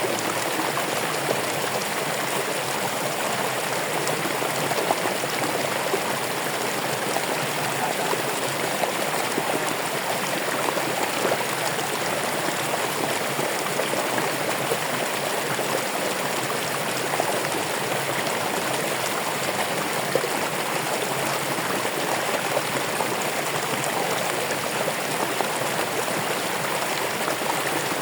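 Running water from a stream, a steady rushing and splashing with small irregular crackles.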